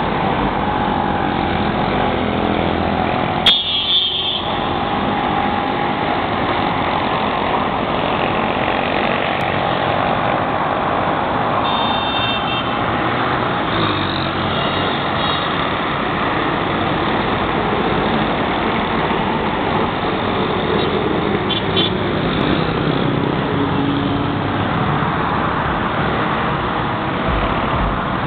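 Steady road traffic noise from passing vehicles, with a sharp click about three and a half seconds in and a few brief high-pitched tones around the middle.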